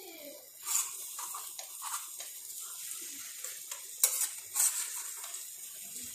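A spatula stirring and scraping chopped okra and scrambled egg around a frying pan, with a steady sizzle of frying beneath. A few sharper clacks of the spatula on the pan stand out, the loudest just under a second in and about four seconds in.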